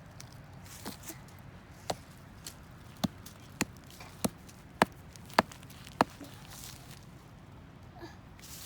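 A stick striking a log again and again: about eight sharp knocks, coming faster in the middle at nearly two a second, then stopping about two-thirds of the way through.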